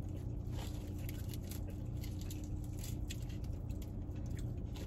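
Eating crispy fried chicken: the meat is pulled apart and chewed, with many small wet clicks and crackles, over the steady low hum of a car's air conditioning.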